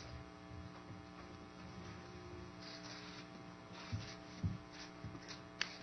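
Steady electrical mains hum in a quiet pause, with a few faint short knocks in the second half.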